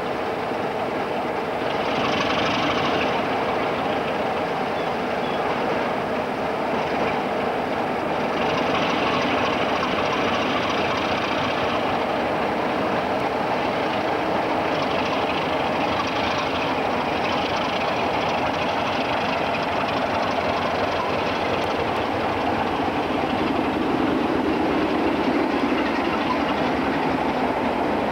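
Diesel-hauled ballast train passing close by: Class 33 locomotives' engines running over a steady rumble of the train, with the wheels clattering over the rail joints.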